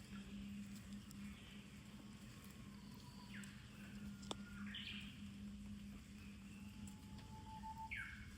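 Japanese bush warbler singing its summer song twice, faintly: a held whistled note followed by a quick falling flourish, the familiar 'hoo-hokekyo'. A steady low hum runs underneath, and there is one sharp click about halfway.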